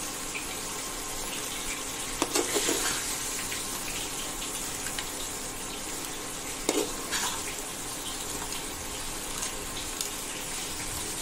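Crab and potato curry sizzling steadily in a frying pan as it is sautéed and stirred with a spatula, with a few scrapes and knocks of the spatula against the pan a couple of seconds in and again near the middle.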